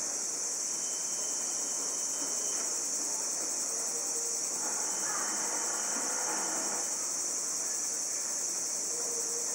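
Steady high-pitched chorus of insects. Beneath it, the faint running noise of a Keio 3000 series electric train rolling slowly away through the depot tracks swells briefly around the middle.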